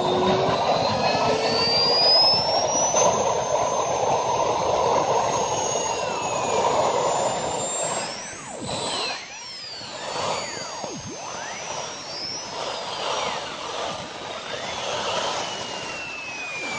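JetCat P-20 micro turbine jet engine spooling up through its start sequence under FADEC control: a turbine whine that keeps rising in pitch as the fuel ramps up, from about 21,000 to nearly 79,000 rpm. The rushing combustion noise under it eases about halfway through.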